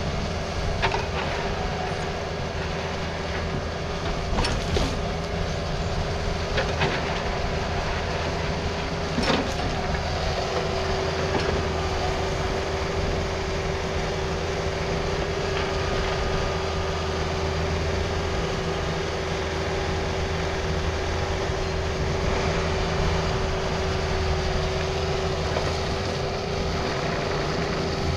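Takeuchi TB260 mini excavator's diesel engine running steadily under load with a steady whine, its bucket working gravel over the culvert. There are a few sharp clanks, the loudest about nine seconds in, and the whine grows stronger soon after.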